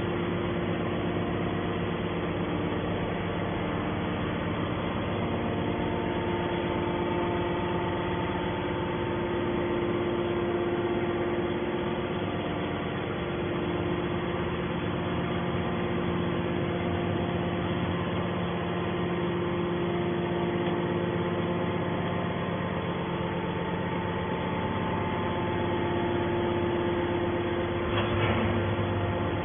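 Hydraulic scrap metal baler running: a steady machine hum with several held tones that holds at one level throughout.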